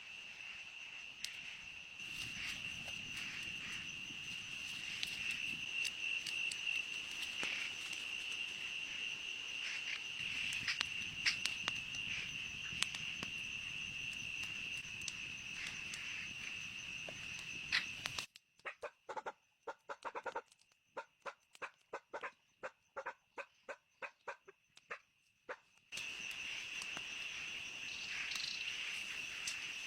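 Steady high-pitched insect chorus, like crickets, with scattered light knocks and rustles. About eighteen seconds in it breaks off abruptly to a quieter run of short repeated calls or taps, about two a second, and the insect drone returns near the end.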